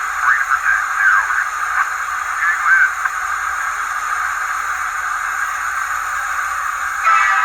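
ESU LokSound 5 sound decoder in an HO-scale SD70ACe model locomotive, playing locomotive sounds through its small, tinny speaker as a steady hiss. Warbling, radio-like sounds slide up and down in pitch for the first few seconds, and a short burst comes near the end.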